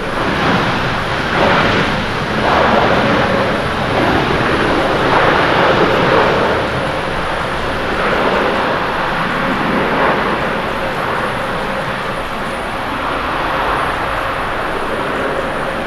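Loud jet engine noise from a Boeing 787-9 airliner's GEnx turbofans as it rolls out after landing on a wet runway, spoilers raised. The noise swells and eases several times, then tapers slightly toward the end.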